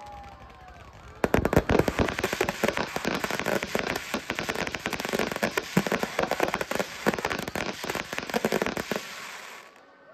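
Aerial fireworks crackling: a dense rapid barrage of pops and bangs from crackle-star shells. It starts sharply about a second in and stops abruptly near the end.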